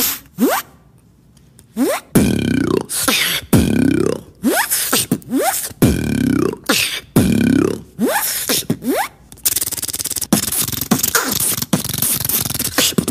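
A beatboxer making sound effects with the mouth: repeated swooping bursts that glide in pitch, then a fast rattling buzz over the last few seconds.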